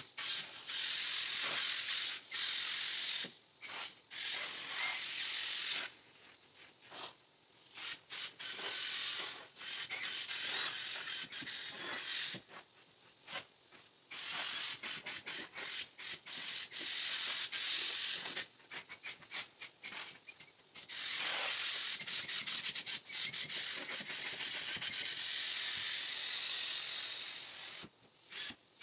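Steam-cleaning extractor's vacuum hose and hand tool drawing air and water over upholstery and a rug: a high suction hiss with whistling tones, cutting in and out many times.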